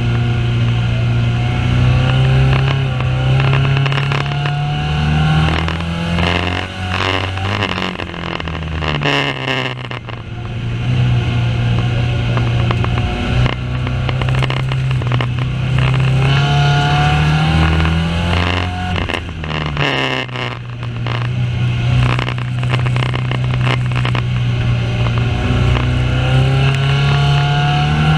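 Banger racing car's engine pulling hard, its pitch climbing steadily for several seconds, then dropping sharply twice as it lifts off, with rattling knocks each time, before climbing again: flat out on the straights and backing off for the bends.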